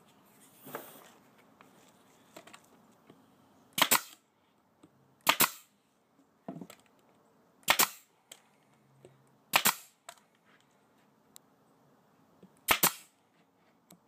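Pneumatic brad nailer driving brads into MDF: five loud, sharp shots spaced one to three seconds apart, with a softer one among them.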